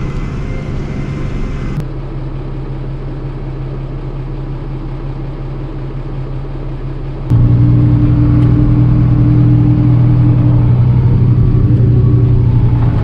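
Tractor engine running steadily, heard from inside the cab; the low hum gets suddenly louder about seven seconds in.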